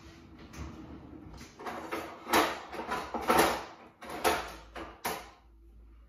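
Rummaging in a kitchen drawer: a series of sharp clattering knocks of drawer and utensils, the loudest about two and three seconds in.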